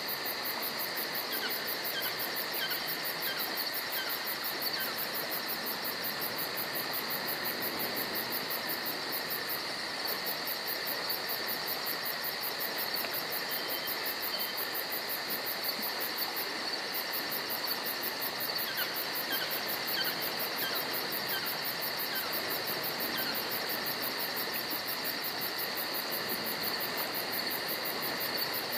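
Evening chorus of insects: a steady shrill trilling at two pitches with a rapid high-pitched pulsing above it, over a constant hiss. A few faint short chirps stand out here and there.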